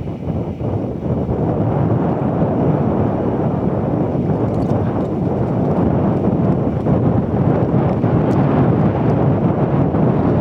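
Strong gusting wind buffeting the microphone: a loud, steady low rumble, rising slightly after the first second or two.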